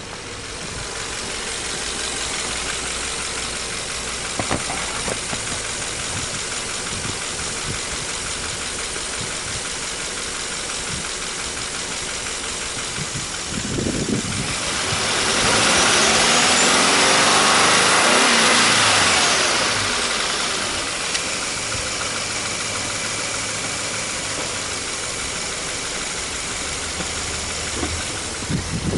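Subaru Impreza Sport 1.6i-L's 1.6-litre horizontally opposed four-cylinder engine idling, heard over the open engine bay. About halfway through it is revved up, held high for a few seconds, and falls back to a steady idle.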